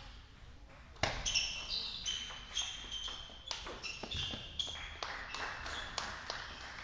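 Table tennis rally: the ball struck by the bats and bouncing on the table, sharp clicking pings about three a second, starting about a second in after the serve.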